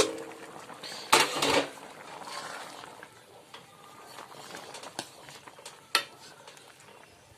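A spoon scraping and clinking against cookware as food is mixed, with a louder scrape about a second in and sharp clinks near five and six seconds.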